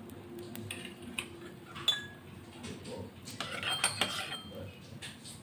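Metal kitchenware clinking: a few scattered sharp clinks, then a busier run of ringing clinks about three and a half to four seconds in.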